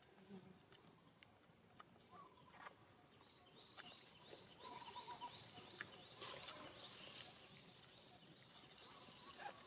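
Faint outdoor ambience: scattered small clicks and rustles, with a few short high chirps in the middle.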